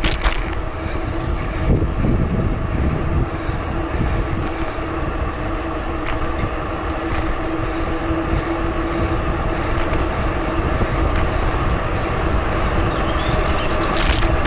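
Bicycle rolling along a trail: a steady low rumble of wind and tyre noise with a steady hum running through it, and a few sharp clicks, most clearly near the start and near the end.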